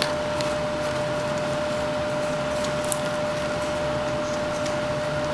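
Faint scrapes and small clicks of a knife whittling wood, over a steady hum and hiss with one constant tone.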